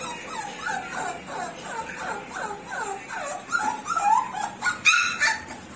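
American bully puppy whimpering: a quick run of short, falling whines, about three a second, with a louder, higher yelp about five seconds in.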